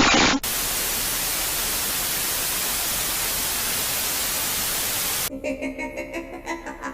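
Loud, steady white-noise static hiss that cuts in sharply about half a second in and holds unchanged. About five seconds later it cuts off and quieter music with a pulsing beat begins.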